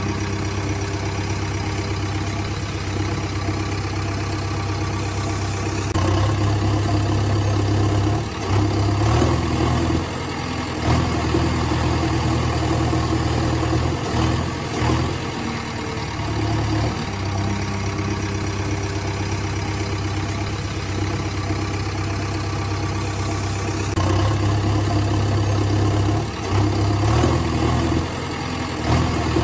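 Toy remote-control tracked excavator running, giving a continuous engine-like hum that shifts in pitch and level every few seconds as its boom and bucket are worked.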